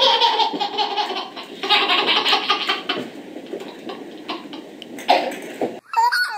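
A baby laughing hard in repeated bursts, quieter for a couple of seconds in the middle. It breaks off abruptly near the end.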